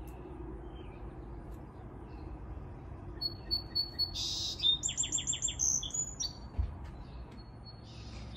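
A songbird singing outdoors: a thin held whistle, then a short buzzy note and a quick run of about half a dozen repeated high notes, starting about three seconds in. A faint low hum sits underneath.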